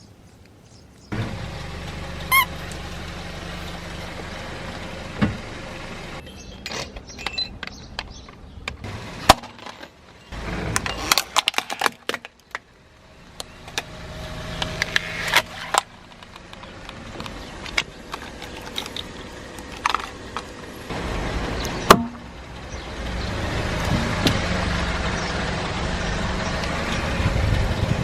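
Car engine running at low speed while objects crack and crunch under the tyres, with many sharp snaps scattered among a steady engine sound.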